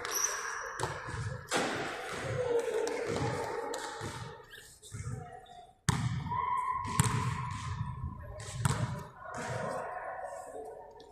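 A run of dull thumps, about two a second, with faint voices in the background.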